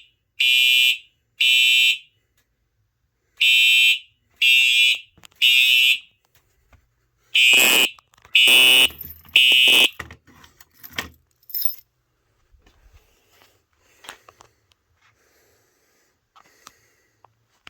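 Simplex Truealert horn strobe sounding in the temporal-three evacuation pattern: groups of three short, loud, harsh horn blasts with a pause between groups. The horn falls silent about ten seconds in, and a few clicks and rattles follow.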